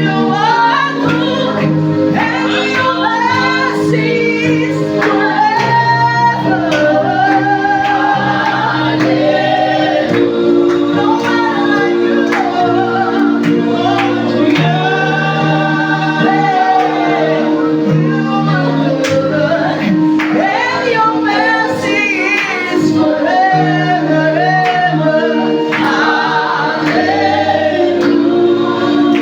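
Gospel praise team singing a worship song together, men's and women's voices, over steady held chords.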